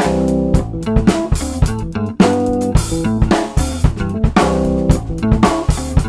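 Tama Granstar drum kit with 22-inch kick, toms and Paiste cymbals played in a steady groove along with a backing track of electric guitar and bass guitar.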